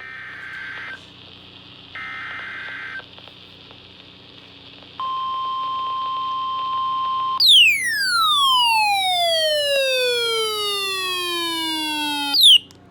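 Emergency Alert System alert over NOAA Weather Radio: two one-second bursts of SAME header data tones, then the steady 1050 Hz warning alarm tone. About seven seconds in the alarm tone gives way to a long falling glide with many overtones that drops for about five seconds.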